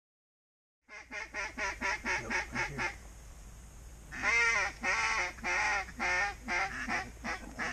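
Mallard quacking: a fast run of short quacks, then a string of louder, drawn-out quacks from about four seconds in.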